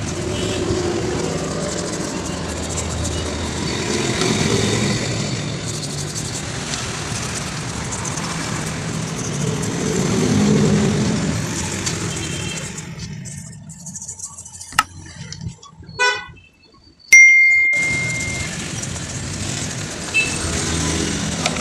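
A stiff brush scrubbing a small motorcycle engine's cylinder head and fins with soapy, acid-laced water, a rough steady hiss. About two-thirds of the way through it drops away, and a short row of ticks is followed by a loud single tone like a horn toot, held for about a second, before the scrubbing noise returns.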